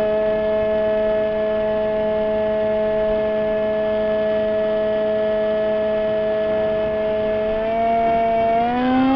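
RC model plane's electric motor and propeller, heard from a camera mounted on the plane, whining at a steady pitch at cruise throttle. Near the end the pitch climbs as the throttle is opened.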